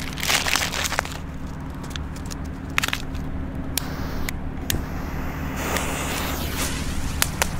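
Scattered sharp clicks and scrapes as foil-wrapped firework balls are handled and set on asphalt, then, about six seconds in, a short hiss as a jet-flame lighter lights a fuse that catches and sputters, followed by two clicks. A steady low rumble runs underneath.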